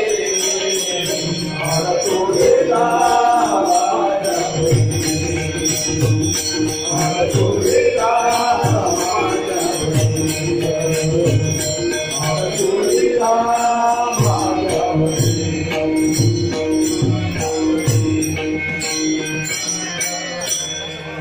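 A devotional group sings a Marathi abhang (ovi) in call-and-response phrases. Jingling hand cymbals and a steady low drum beat accompany the singing.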